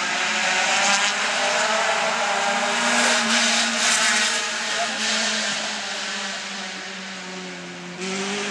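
A motor engine running steadily, its pitch drifting up and down a little. It sags late on and jumps back up abruptly near the end.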